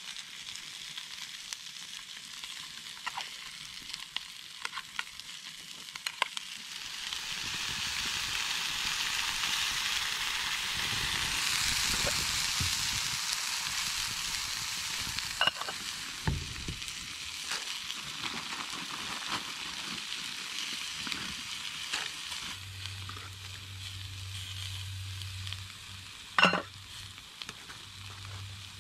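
Vegetables and a sausage sizzling in a small camping frying pan over a wood fire, the sizzle swelling in the middle and then settling. Occasional clicks of a utensil on the pan, with a sharper knock near the end.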